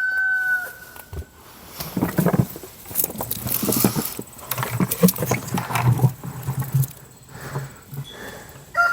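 A rooster's crow trails off about a second in. Then a five-gallon bucket of freshly dug sweet potatoes is tipped out onto the ground, a run of irregular knocks and thuds that goes on for several seconds. A rooster starts crowing again at the very end.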